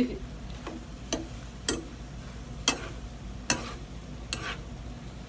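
Metal ladle knocking and scraping against a frying pan while stir-frying clams and vegetables: about half a dozen sharp clacks at uneven intervals, over a faint frying sizzle.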